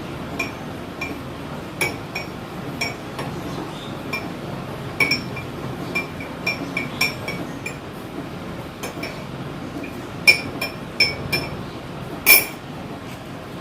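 A metal spoon stirring honey into a cup of hot kadha, clinking against the sides again and again with a short ringing tick, two or three times a second, with a louder clink near the end.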